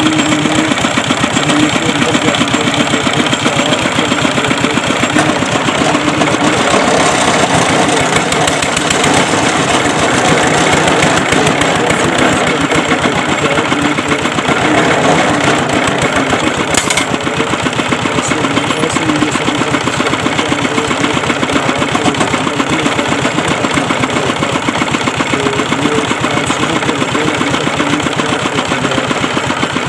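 Engine of a tube-well boring machine running steadily with a fast, even chugging beat. A short sharp click about halfway through.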